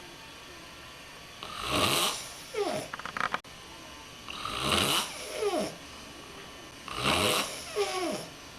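A man snoring, three snores about every two and a half to three seconds. Each is a harsh rasp followed by a short falling tone, and the first ends in a brief rattle.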